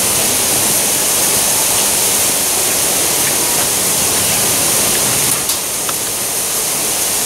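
Fine jets of water hissing steadily out of leaks in a water-filled steel drum that a garden hose keeps under mains pressure, spraying onto the wet pavement. The drum has been pushed out until its seams give way.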